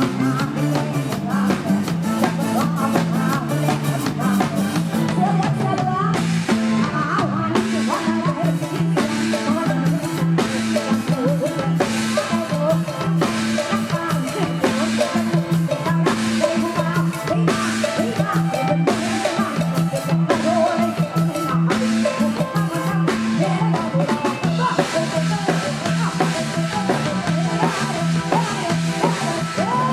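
Live band music played loud: a drum kit keeping a steady beat with rimshots, over electric guitar and a repeating bass line.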